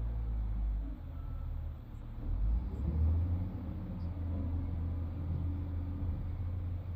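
Large excavator's diesel engine running, low-pitched and steady, swelling louder for a moment about two to three seconds in as it works under load.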